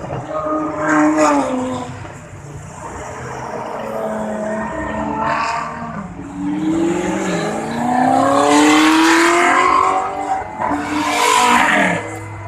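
Supercar engines revving and accelerating past one after another, their pitch climbing as each speeds up and dropping as it goes by. The loudest pass comes in the second half.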